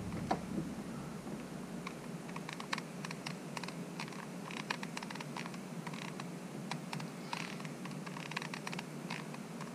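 Irregular small clicks and scrapes of a hot glue gun being worked at a hole in a kayak hull, pressing glue in around a zip tie, over a faint steady hum.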